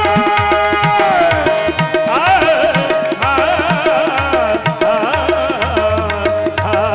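Qawwali music: tabla strokes keep a steady beat under a sustained melodic drone. A singer's long note slides down about a second in, and wavering, ornamented sung phrases follow.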